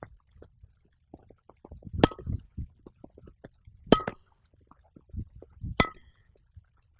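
Tennis balls volleyed with a narrow-headed Sweet Spotter training racket: three sharp hits about two seconds apart, each with a brief ringing tone, among softer thuds and small clicks.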